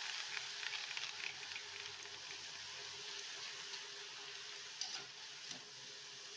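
Drops of gram-flour batter frying in hot oil as boondi: a steady sizzle that slowly dies down as the bubbling subsides and the boondi cooks through. A couple of light clicks near the end.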